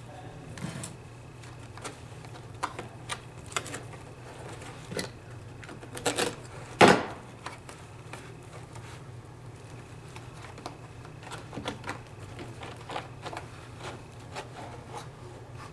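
Carpet being handled and worked at the foot of a stair: scattered light clicks, taps and scrapes, with a short cluster of knocks and then one loud, sharp knock about seven seconds in.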